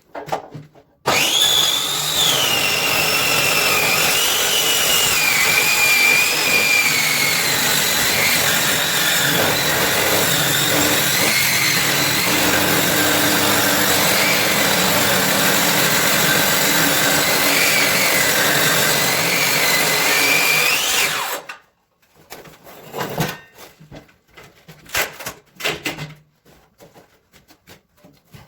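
An electric power tool runs on wood for about twenty seconds with a high motor whine that sags in pitch as it works and climbs again just before it switches off. A few knocks follow.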